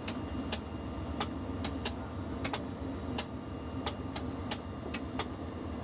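Inside a diesel locomotive cab: a steady engine rumble and hum, with sharp clicks about every half second to second as the wheels roll slowly over rail joints.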